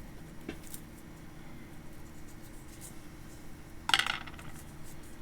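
Light clicks and taps from handling the parts of a disassembled wire-feed soldering iron, with a louder cluster of clicks about four seconds in.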